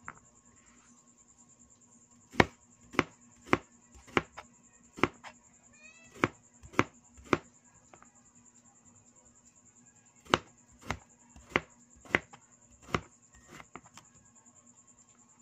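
Cleaver slicing a cucumber into rounds on a cutting board. Sharp knocks of the blade hitting the board come about two a second, a run of about ten, then after a pause of some three seconds five or six more.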